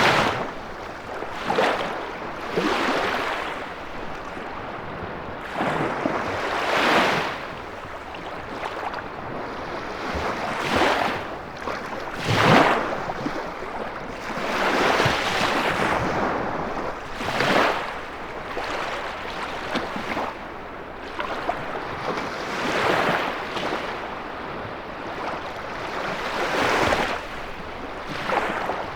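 Lake waves breaking and washing on the shore in a snowstorm wind, surging in again every two to four seconds.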